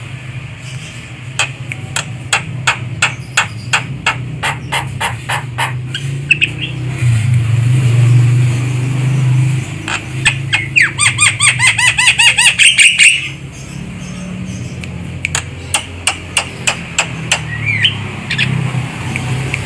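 Javan myna (jalak kebo) calling: series of sharp, repeated notes about three a second, with a faster harsh chatter in the middle. A steady low hum runs underneath and swells for a couple of seconds before the chatter.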